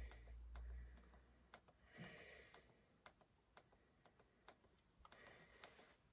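Faint, quiet clicks of a remote control's button pressed about twice a second as a menu selection steps down a list. Three soft breaths come close to the microphone: at the start, about two seconds in and about five seconds in.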